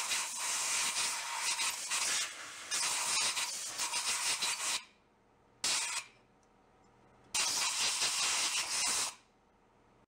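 Compressed-air blow gun blasting into the bevel-gear housing of an old outboard's lower unit: a long hiss of air for about five seconds, a short puff a second later, then another blast of about two seconds that cuts off near the end.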